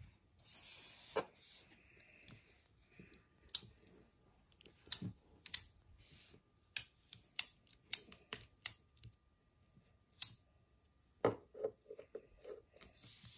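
Origami paper being folded and creased by hand on a tabletop: a soft rustle, then a scattered series of sharp crisp clicks and crackles as the stiff paper's folds are pressed flat and tucked into the pockets.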